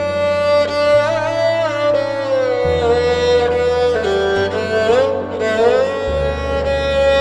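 Sad Indian background music: a slow violin melody with sliding, wavering ornaments over sustained low chords that change every second or two.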